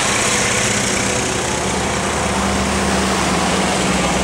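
Engine of an SUV running as it drives slowly past close by, with a small motorbike engine approaching; the engine note grows stronger about two seconds in.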